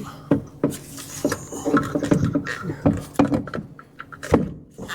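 Irregular knocks and clicks of a brake servo and its mounting plate being worked around the brake pedal and slotted onto the pedal box, several a second.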